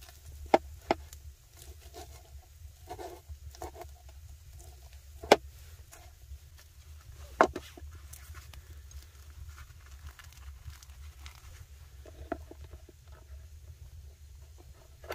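A knife knocking sharply on a wooden cutting board about five times, loudest twice in the middle, between softer sounds of hands cutting and pulling apart cooked chicken. A low steady rumble runs underneath.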